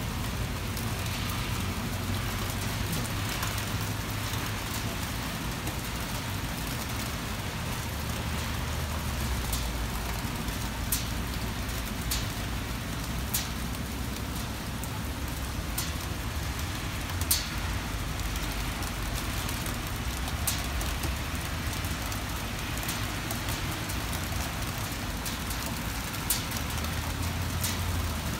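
Heavy rain falling steadily on paving and gravel, a continuous hiss. Occasional sharp ticks come through it, drops landing close by.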